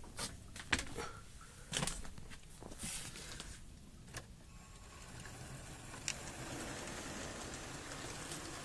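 A few handling clicks and knocks, then from about four seconds in the steady running noise of an OO gauge model of a New Zealand EF class 30 electric locomotive, its motor and wheels going along the track as the train gets moving.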